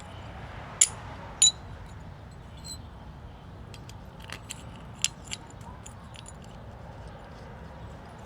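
Metal tools and parts clinking during engine work: two sharp, ringing metallic clinks about a second in, then a scatter of lighter clicks and ticks a few seconds later.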